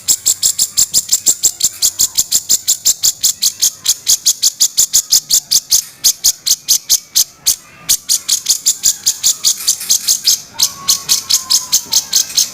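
Cucak jenggot (grey-cheeked bulbul) giving its harsh rattling 'kasaran' call: a long, fast run of sharp, high-pitched clicking notes, about six a second, with two brief breaks near the middle.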